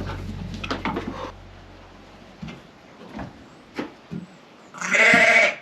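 A lamb bleats once, loudly and briefly, near the end, among a few faint knocks and shuffles of handling. Background music fades out in the first two seconds.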